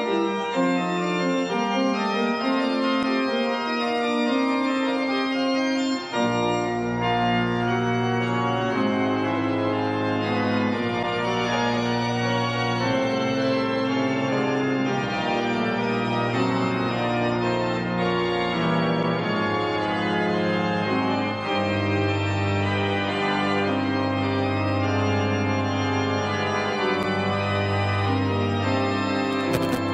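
Organ music with slow, sustained chords; deep bass notes join in about six seconds in.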